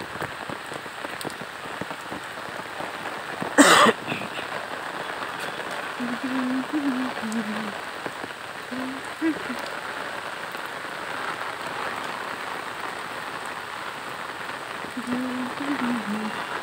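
Steady rain falling, an even hiss of drops on the wet road and vegetation. A brief loud noise cuts through it about four seconds in.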